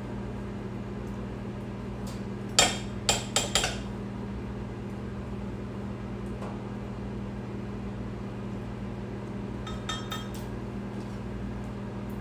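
A spatula knocking against a glass measuring cup: four sharp clinks about two and a half seconds in, the first the loudest, then a few fainter ones near ten seconds. A steady low hum runs underneath.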